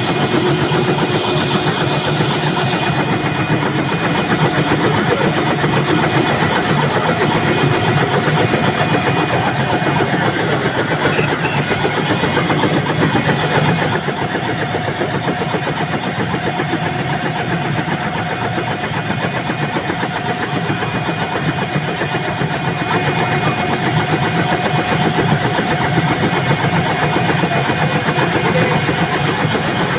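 Helicopter running steadily on the ground or close by: a continuous engine noise with steady tones and a fast, even beat from the rotor, easing slightly about halfway through.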